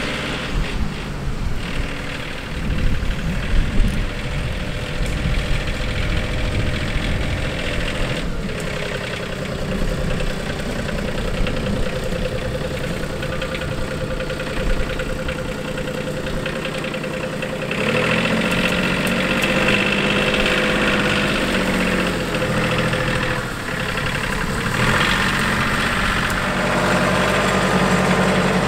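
RK 37 compact tractor's diesel engine running steadily as the tractor drives closer, growing louder and fuller about two-thirds of the way through.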